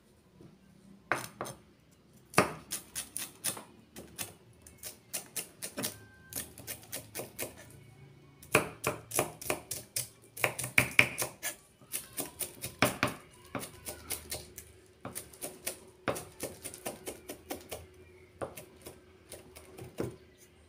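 Kitchen knife chopping leafy green herbs on a thick round wooden chopping board: runs of quick, sharp knife strokes, several a second, with short pauses between runs.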